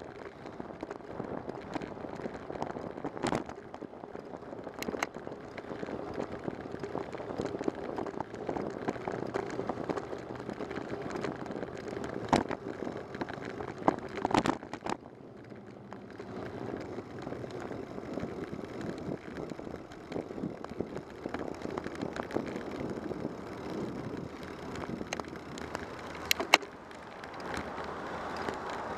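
Bicycle rolling on city asphalt: steady tyre and road noise, with occasional sharp clicks and rattles as the bike goes over bumps.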